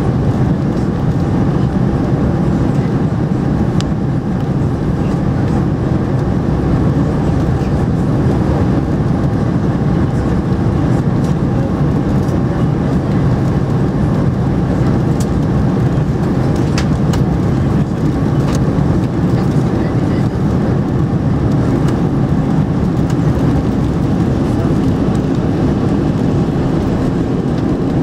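Steady cabin noise inside an Airbus A300B4-600 on final approach, heard from a seat over the wing: engine noise and rushing air over the extended flaps, a deep, even rumble. A few faint clicks can be heard over it.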